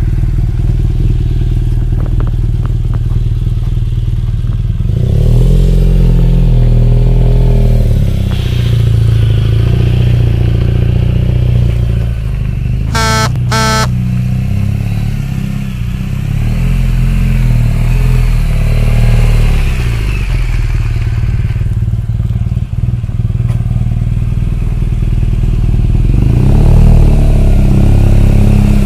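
BMW R1200 GS Adventure's boxer twin running through an aftermarket slip-on silencer, idling and revved three times, each rev rising and falling back. Two short horn beeps about halfway through.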